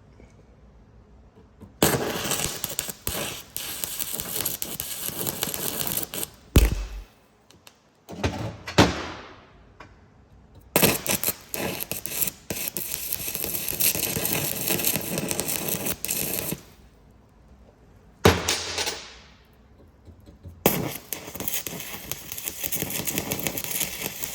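Arc welding with nickel rod on a cracked cast-iron vise nut: three runs of steady crackling arc, each several seconds long, with short quiet gaps and a few sharp knocks between them.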